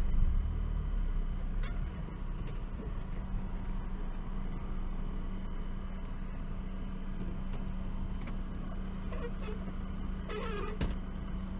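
UAZ 452 van's engine running steadily under way, heard from inside the cab as a constant low hum and rumble.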